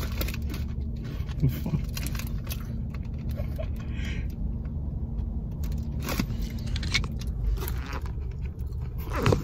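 Steady low hum of a car's cabin, with scattered crinkles and rustles of a plastic snack bag being handled.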